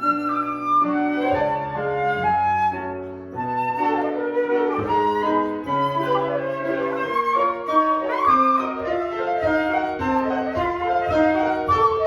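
Flute playing a flowing classical melody over piano accompaniment.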